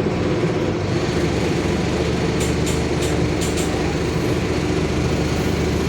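Mercedes-Benz OF-1721 Bluetec 5 bus's four-cylinder diesel and drivetrain running steadily on the road, a continuous low drone with the growl of a noisy differential. A few quick light clicks or rattles come near the middle.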